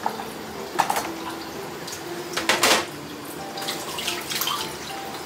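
Tableware clinking a few times, sharpest about a second in and again in a quick cluster around two and a half seconds in, over a steady low hiss.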